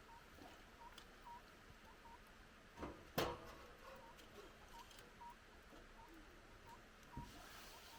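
Firewood burning quietly in a fire pit, with a sharp pop a little after three seconds and a softer crack near seven seconds. A short, faint chirp repeats irregularly about once or twice a second.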